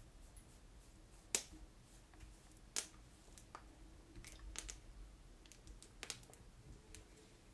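Long acrylic stiletto nails clicking: two sharp clicks about a second and a half apart, then a scatter of softer clicks a few seconds in.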